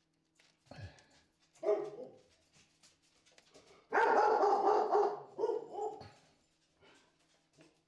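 A dog barking: two short barks in the first two seconds, then a longer, loud drawn-out bark about four seconds in, followed by one more shorter bark.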